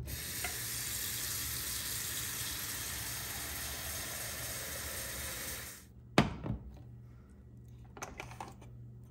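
Kitchen faucet running water into a cooking pot, a steady hiss that stops about six seconds in. Soon after, one loud knock as the pot is set down on the stovetop, then a few faint clicks.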